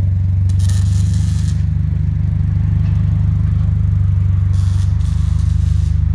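Subaru BRZ's 2.0-litre flat-four boxer engine idling through a newly fitted Invidia N1 cat-back exhaust: a steady, low exhaust note with no revving.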